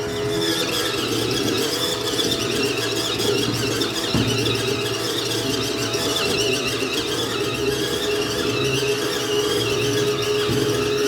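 Ucclife 1.5 kg mini washing machine running: a steady motor hum with a wavering high-pitched whine over it, and a small click about four seconds in.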